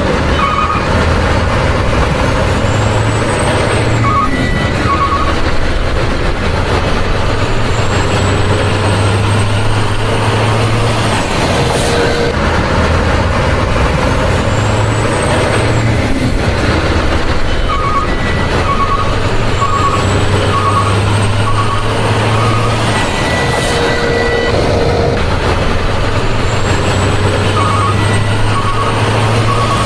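Heavy truck engine sound effect running under runs of steady reversing beeps and occasional air-brake hisses. It accompanies a hand-pushed toy loader, so it is a dubbed or toy-generated sound rather than a real engine.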